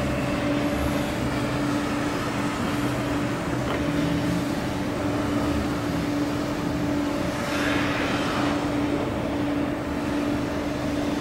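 A steady mechanical hum: one constant drone over an even rumble, with a brief swell of hiss about eight seconds in.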